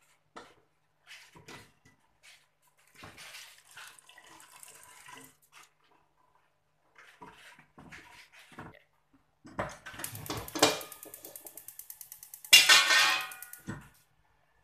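Cooked cassava leaves are lifted from a stainless steel pot onto a plate, with soft clinks of utensils against the pot and water dripping and splashing. About ten seconds in comes a fast, even run of clicks lasting a couple of seconds, then the loudest sound: a brief metallic clatter that rings.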